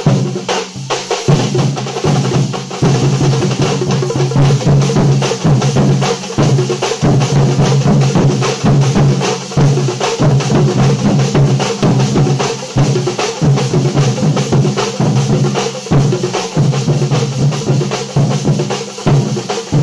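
Troupe of Kerala chenda drums beaten with sticks, many drummers together in a fast, dense, unbroken rhythm.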